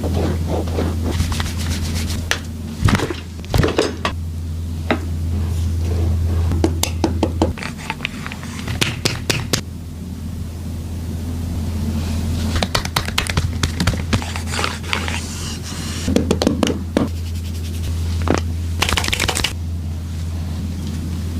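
Hands rubbing, scraping and pressing on a person's body during a massage, in irregular bursts of scratchy contact noise and sharp clicks, over a steady low hum.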